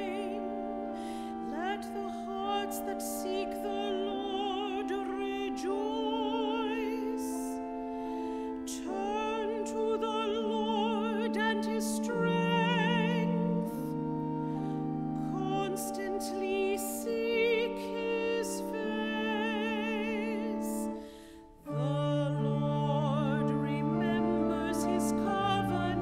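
A solo female cantor sings a verse of the responsorial psalm with vibrato over sustained organ chords. The music breaks off briefly about 21 seconds in, then singing and organ resume.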